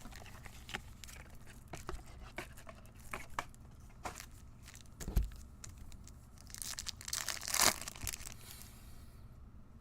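Trading card pack wrappers being torn open and crinkled, in short scattered rustles, with a longer, louder stretch of crinkling about seven seconds in.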